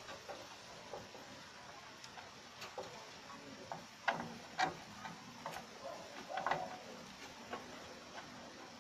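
Irregular small clicks and taps of hands and a screwdriver working inside a desktop computer case, handling cables, connectors and metal parts around the motherboard. The clicks are sparse at first and come closer together and louder from about four seconds in.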